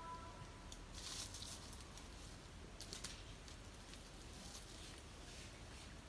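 Peacock rattling its fanned train feathers in courtship display: faint dry rustling bursts, one about a second in and a few short ones near three seconds.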